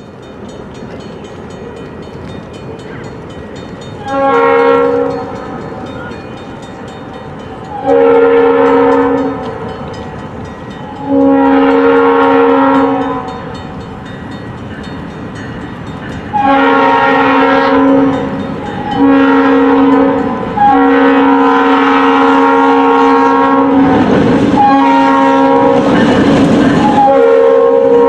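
New England Central Railroad locomotive 3845's air horn, several chime notes at once, sounding six blasts: a short one, four longer ones, then one held for about seven seconds. Underneath is the growing rumble of the approaching train.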